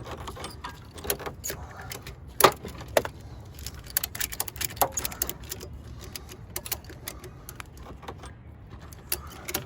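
Hand tools clinking and knocking against metal parts of a car's engine bay, irregular sharp clanks with the loudest about two and a half seconds in, as the motor mounts are worked loose.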